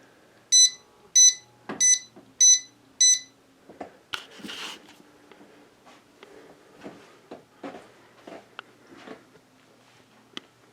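Electronic ceiling-fan wall control beeping five times in quick succession as the fan is switched on at speed 5, followed by a faint low hum from the fan motor with a few light clicks and a brief rustle.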